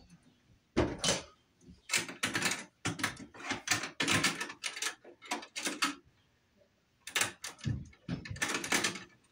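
Irregular clicks, taps and rattles of hands working a plastic wall light fixture and its wires, in quick clusters with a short lull about a second in and another near six seconds.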